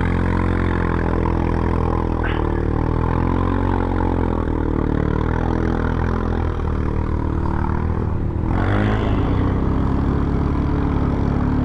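ATV engine running as the quad rides through mud and slush, its speed rising and falling with the throttle. About eight and a half seconds in there is a brief rush of noise as the wheels splash through the slushy mud.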